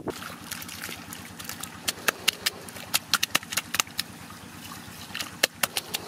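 Bare hands patting and smoothing wet concrete mix, giving irregular short wet slaps and clicks, several each second, over a faint steady hiss.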